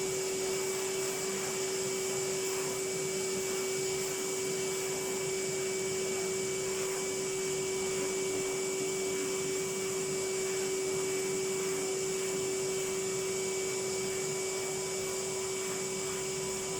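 Vacuum cleaner running steadily with a constant whine, being used to hoover dust off a person.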